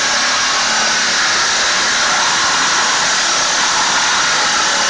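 Power saw cutting the steel tube of a rollbar sidebar, a loud steady grinding hiss that starts and stops abruptly.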